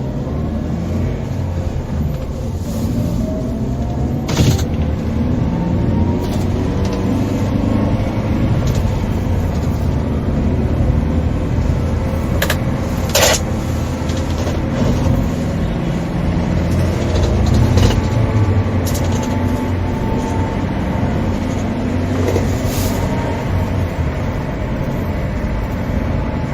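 Motor vehicle driving: a steady low engine and road rumble, its engine note rising a few seconds in as it picks up speed, with a few sharp clicks or knocks about a third and halfway through.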